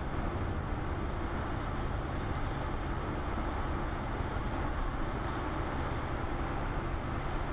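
Steady road and tyre noise with engine hum inside a car's cabin at highway speed, picked up by a windshield-mounted dash cam's built-in microphone.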